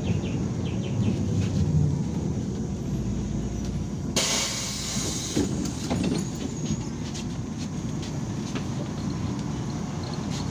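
Cabin rumble of a MAZ 103 city bus moving slowly in traffic, with a sharp hiss of released compressed air lasting about a second, about four seconds in.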